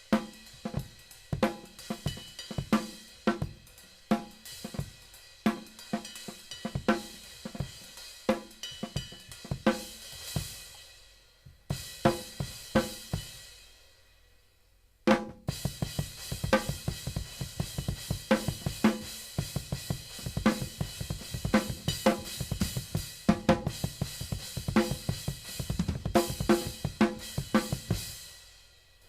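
Drum kit being played: snare, bass drum, hi-hat and cymbals, with a Sabian HHX Omni 19-inch cymbal on test. Around 11 seconds in the playing thins to a few hits that ring away almost to silence, then starts again about 15 seconds in, busier and fuller in the low end.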